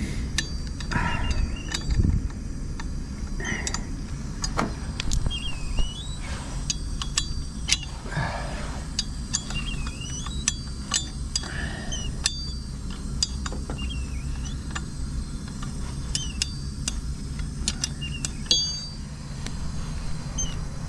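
Outdoor ambience: a steady low rumble, with scattered light clicks and brief rustles, and short high chirps that recur every second or two.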